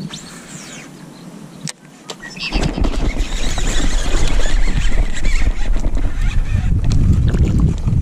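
A baitcasting reel's spool whirs down in a falling whine as a topwater frog is cast. About two and a half seconds in, a loud, steady rumble of splashing and rod-and-reel handling sets in as a bass hits the frog and is fought toward the kayak.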